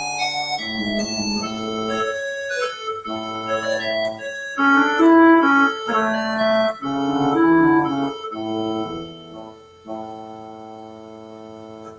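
Organ playing a slow passage of sustained chords, ending on a long held chord that fades near the end.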